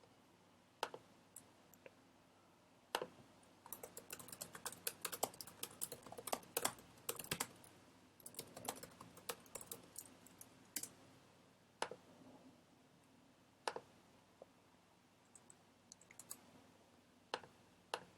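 Typing on a computer keyboard: a few single key presses, a quick run of keystrokes lasting several seconds, then scattered single presses again.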